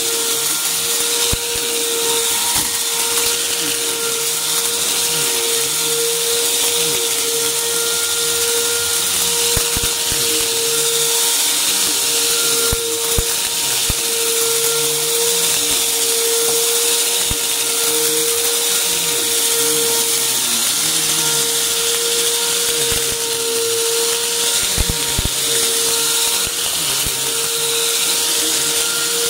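Upright vacuum cleaner running over carpet with a steady motor hum and rushing airflow, while bits of crunchy debris are sucked up in scattered sharp clicks and crackles.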